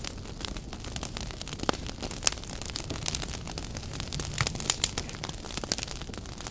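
Firewood burning briskly in an agungi (Korean traditional wood-fired firebox): a steady rush of flame with frequent sharp crackles and pops.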